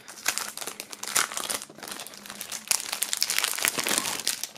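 Clear plastic shrink-wrap film crinkling as it is peeled by hand off a CD jewel case: a rapid, irregular run of small crackles, busiest in the second half.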